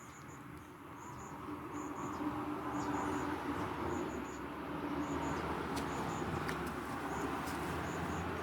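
Pine fatwood fire burning with a steady rushing noise that swells over the first couple of seconds, with a few faint crackles. Insects chirp in short repeated pairs throughout.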